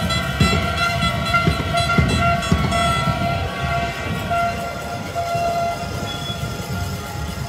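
Horns blowing short, repeated blasts that start and stop over and over, over a low rumble, with a few sharp thumps in the first three seconds.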